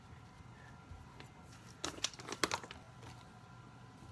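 Slime being mixed in a small cup with a spoon: a short run of clicks and taps about two seconds in, over a faint hum.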